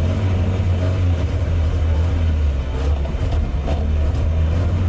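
Car engine running steadily under load as the car tries to drive off with its two rear wheels chained together, the chain holding the car back. There are a few faint knocks over the engine's drone.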